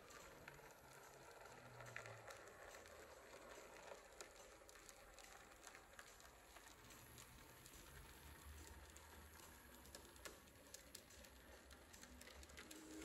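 Near silence with scattered faint light clicks and a weak low hum: a small narrow-gauge model train running along the track.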